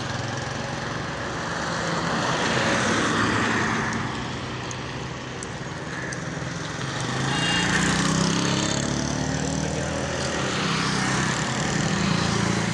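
A motor engine running, its sound swelling and fading twice, with a pitched hum that slides in pitch around the second swell.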